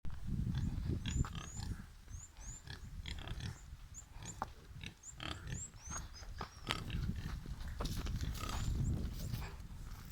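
Pigs grunting steadily in a pen, with short high chirps scattered throughout.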